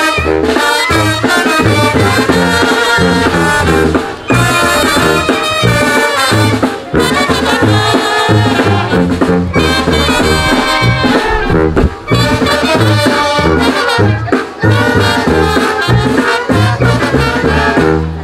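A brass band playing, trumpets and trombones over a moving bass line, with brief pauses between phrases.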